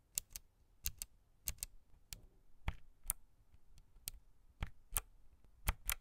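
Clicky blue low-profile mechanical key switch on a Logitech MX Mechanical keyboard, pressed again and again by a finger with the keycap off. It gives a sharp tactile click on each press, often in quick pairs, about two presses a second.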